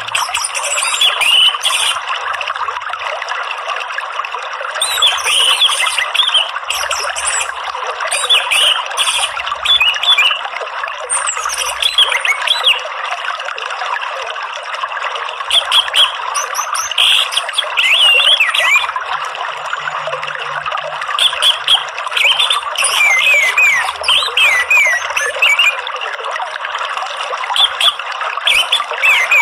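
Steady running water, like a trickling stream, with an orange-headed thrush singing over it: short runs of quick, sliding whistled phrases every few seconds.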